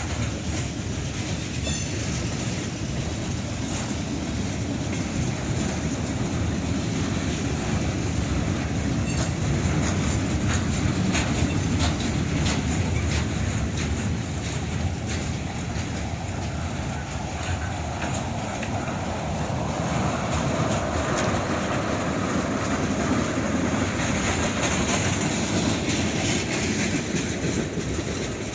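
Cars of a long Norfolk Southern freight train rolling past steadily, wheels clacking over the rail joints.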